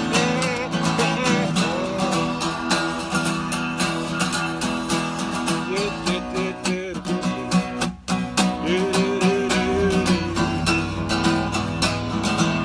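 Acoustic guitar strummed in a steady country rhythm, an instrumental break between the verses of the song.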